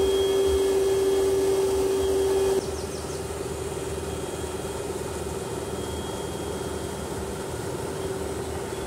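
Powerspout micro-hydro turbine running: a steady whine over the rush of water. After about two and a half seconds the level drops and the whine fades under the water's hiss.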